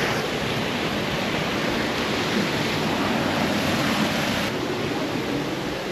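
Steady rush of water from a stream and waterfall, with the highest part of the hiss dropping away about four and a half seconds in.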